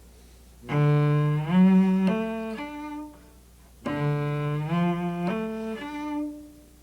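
Solo cello playing two short bowed arpeggios, each of four notes rising step by step, one about a second in and the other about four seconds in. They demonstrate the contrast between a major triad and a minor triad fingering.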